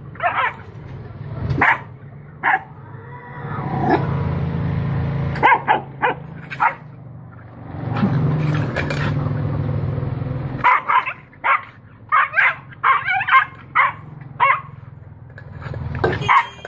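A puppy barking and yipping in short sharp bursts, scattered at first, then in a rapid run of barks in the second half, with a low steady rumble underneath through the middle.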